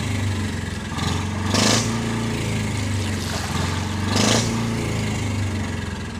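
A boat's engine running steadily at a constant pitch, with a couple of louder whooshes about one and a half and four seconds in.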